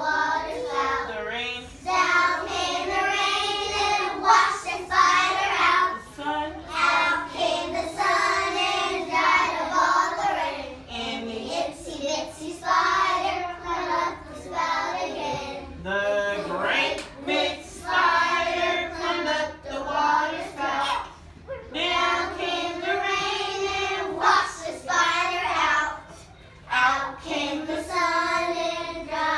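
A group of young children singing a nursery rhyme together, phrase after phrase, with short breaks between lines.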